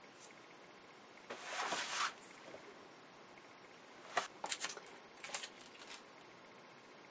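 Paper and stencil handling at a craft table: a rustling swish of paper about a second in, then a few sharp ticks and short crinkles a few seconds later.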